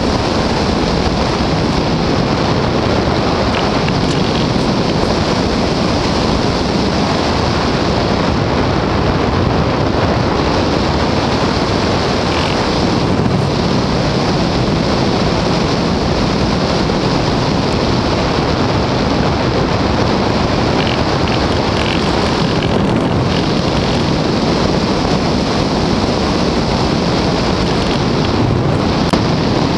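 Loud, steady rush of air over the microphone of a small camera riding aboard an RC model glider in flight, with the top of the hiss dipping briefly a few times.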